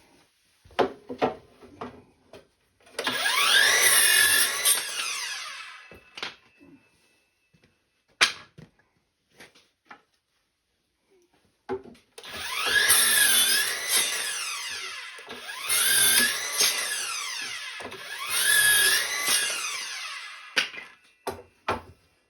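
A small power tool runs in four bursts of about two and a half seconds each, speeding up and slowing down within each one. Sharp clicks and knocks come between the bursts.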